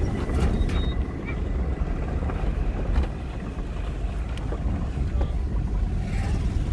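Vehicle driving on a rough, potholed dirt road, heard from inside the cabin: a steady low engine and road rumble with a few sharp knocks and rattles.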